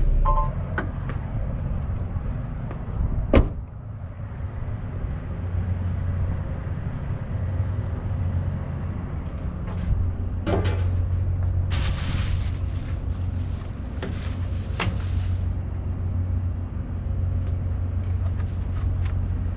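Semi-truck diesel engine idling with a steady low drone, with a few clicks and one sharp knock about three seconds in, and a hiss lasting a few seconds about twelve seconds in.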